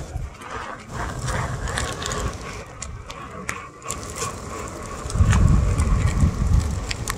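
Onewheel GT rolling over pavement, its tyre running with scattered clicks and knocks over the surface. A heavy low rumble sets in about five seconds in.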